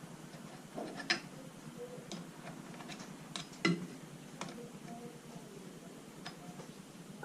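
Scattered light metallic clicks and clinks, about half a dozen, of hand tools and crank parts being handled while a bicycle crankset is taken apart; the loudest comes a little over halfway through.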